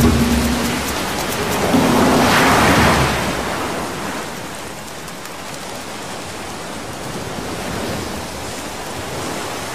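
Surf breaking and washing up a sandy beach: a wave surges about two seconds in, then the wash settles into a steady hiss.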